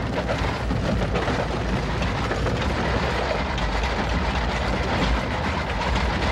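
Satellite vibration test rig running, shaking the satellite to simulate launch vibration: a loud, steady noise, strongest in the low end.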